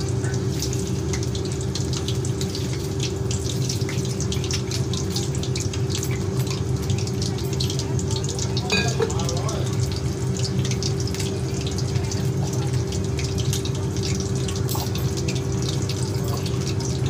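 Battered chicken pakora pieces deep-frying in hot oil in a kadai: a dense, steady crackle and sizzle, over a steady low hum.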